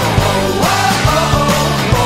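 Rock song with singing over a steady drum beat and bass, played as an ice-hockey goal song.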